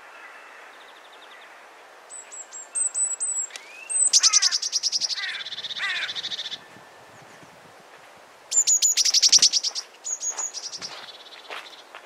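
A small songbird singing twice. Each song opens with a few thin, very high notes and runs into a fast rippling trill.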